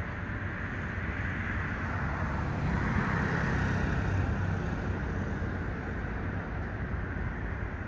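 Steady hum of distant road traffic, swelling for a couple of seconds near the middle as a vehicle passes.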